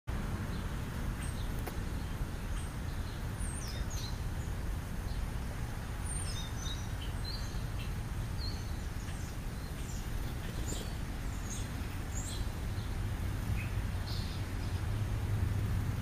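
House sparrows chirping in short, scattered calls over a steady low rumble of road traffic, which swells near the end as a vehicle approaches.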